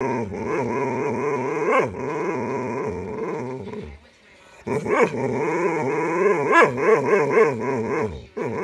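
Boxer dog vocalizing in a temper tantrum: long, wavering grumbling whines with sudden sharp rises in pitch, in two stretches broken by a short pause about four seconds in.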